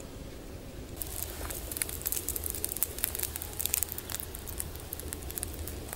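Campfire embers crackling with many small irregular pops, starting about a second in.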